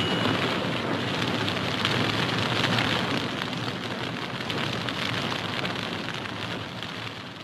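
Flames crackling as book pages burn: a dense, steady crackling hiss that slowly fades out toward the end.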